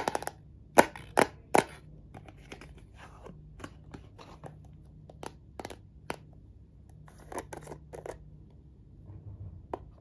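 Small plastic jar being slid out of its cardboard box and its screw lid taken off: sharp clicks and the rustle and scrape of cardboard and plastic. The loudest clicks come in the first two seconds, then softer scattered ones, with a cluster of clicks about seven to eight seconds in.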